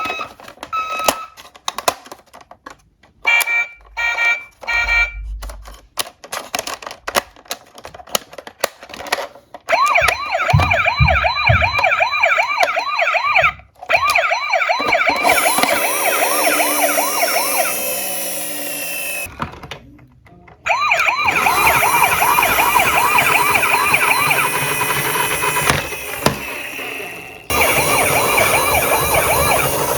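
Clicks and short beeps of toy cars being handled, then the electronic sirens of toy police cars and ambulances sounding in a fast rising-and-falling yelp, several at once, stopping briefly a couple of times.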